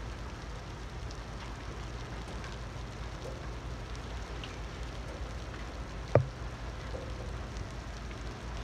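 Steady hiss of rain with a low rumble underneath, and a single sharp tap about six seconds in.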